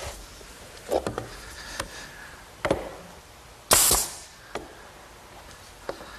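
Pneumatic brad nailer firing once, about four seconds in: a sharp shot followed by a short hiss, driving a brad to fasten the glued top moulding to the clock case. A few lighter knocks come before it.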